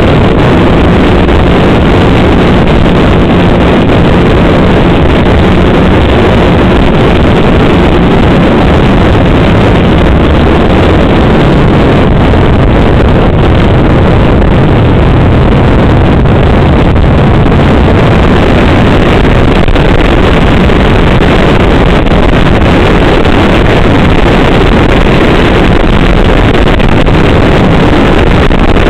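Snowmobile engine running steadily at speed, with wind rushing over the microphone.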